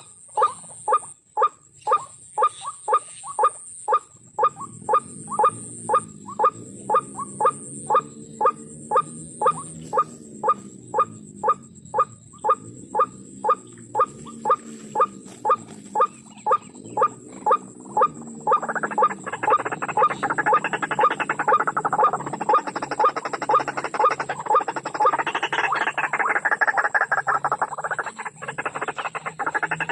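White-breasted waterhen calls: short nasal notes repeated about twice a second, switching about eighteen seconds in to a dense, continuous chattering chorus.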